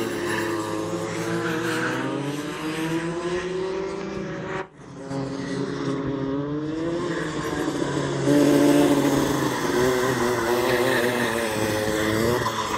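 Rotax two-stroke kart engines running on track, their pitch rising and falling as the karts accelerate out of corners and ease off. The sound cuts out for an instant a little before halfway, and it gets louder about two-thirds of the way through as a kart comes close.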